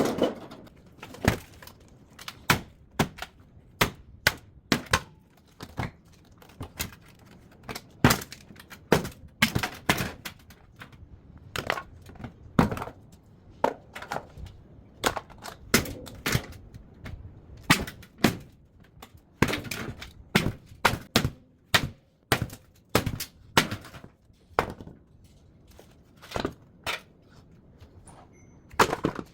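Repeated sharp knocks and cracks, about one or two a second with a couple of short pauses. These are blows breaking apart parts of a top-loading washing machine as it is stripped for scrap.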